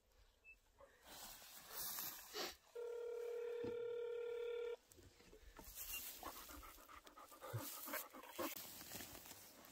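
One two-second ring of a telephone ringback tone from a cell phone's speaker about three seconds in, the call ringing through and not yet answered. After it, a dog panting close by.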